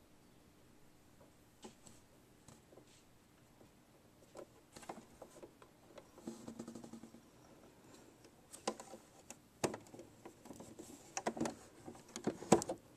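Faint handling noises from a sewing machine being worked by hand: light rustles and small clicks, becoming more frequent about a third of the way in, with several sharper clicks in the last few seconds.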